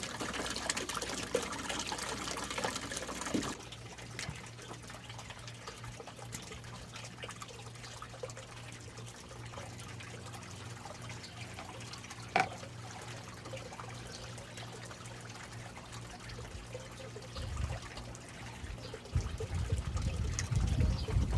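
Water trickling, louder for the first few seconds and then softer over a steady low hum. A single sharp click comes about twelve seconds in, and low rumbling starts near the end.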